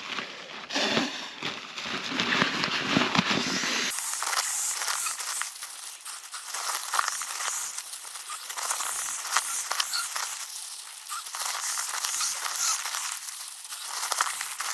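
Crinkling and rustling of a nylon pump bag being squeezed and rolled to push air into an air mattress through its nozzle. About four seconds in, the sound turns thinner and hissier.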